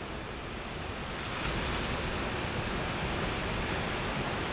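Surf washing onto a beach: a steady hiss of breaking waves that swells a little about a second and a half in, with some wind on the microphone.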